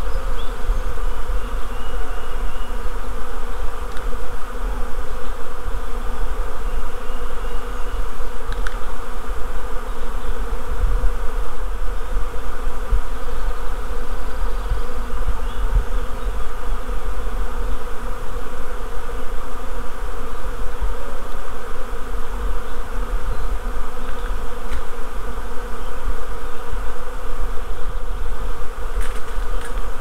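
A honeybee swarm in flight, many bees buzzing at once in a dense, steady hum, with a low rumble underneath.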